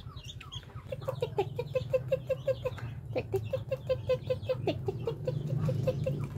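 Chickens clucking: a fast, even run of short low clucks, about six a second, starting about a second in, over a steady low hum.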